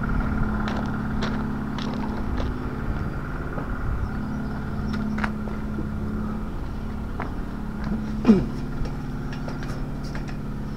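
Diesel engine of a JCB telehandler idling with a steady hum that slowly fades, with a few light clicks over it.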